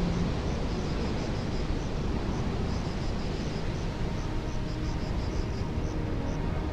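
Wind buffeting the camcorder's microphone: a steady low rushing noise with no other clear sound.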